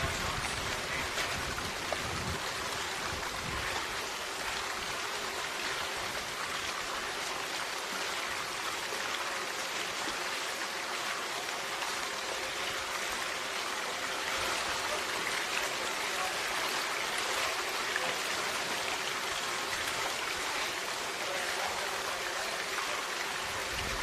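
A steady, even hiss with no distinct events.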